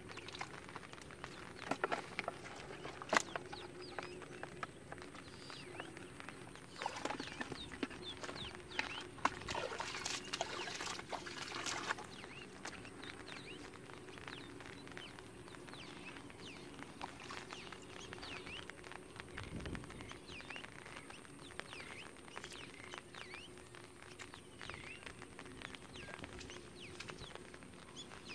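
Water splashing, pouring and dripping, with sharp knocks against a plastic bucket, as fish are shaken out of a wet ring net into it; this is busiest in the first twelve seconds and then dies down. Short chirps sound in the background throughout.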